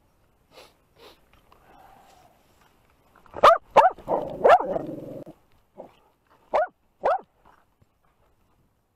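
Dog barking right at the microphone: three sharp barks starting about three and a half seconds in, with a rougher, drawn-out sound among them, then two more barks about two seconds later.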